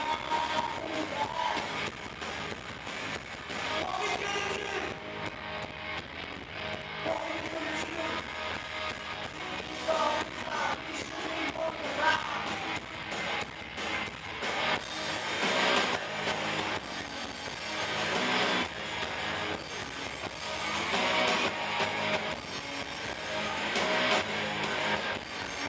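Live rock band playing a song: two electric guitars, bass guitar and a drum kit.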